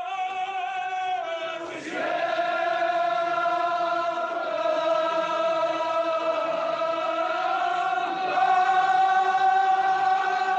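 Men's voices chanting a Kashmiri marsiya, a Shia mourning elegy, in long held notes. A new phrase starts about two seconds in, and the chant gets louder near the end.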